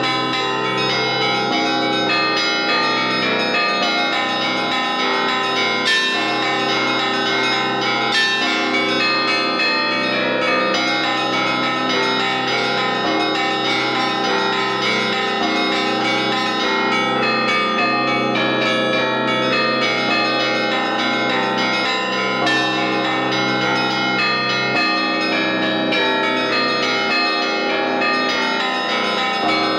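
Russian Orthodox monastery bells ringing a peal: many bells struck together in an unbroken, overlapping ring, with the deep hum of a large bell underneath.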